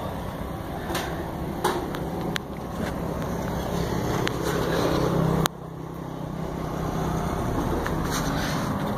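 2008 Daihatsu Mira's small three-cylinder petrol engine running, a steady low hum. It grows louder for a couple of seconds, drops off suddenly about five and a half seconds in, then builds again. A few sharp clicks come in over it.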